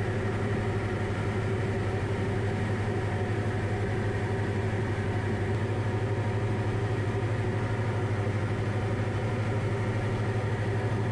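Diamond DA40 single-engine light aircraft's piston engine and propeller in cruise on approach, heard in the cockpit: a steady, unchanging drone with a strong low hum.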